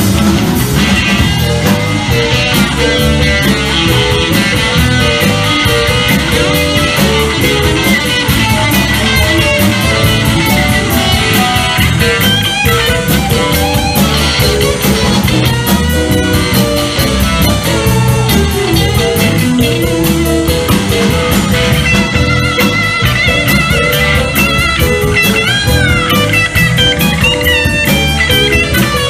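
Live rock-and-roll band playing an instrumental break, with electric guitar out front over bass guitar and drum kit and no vocals.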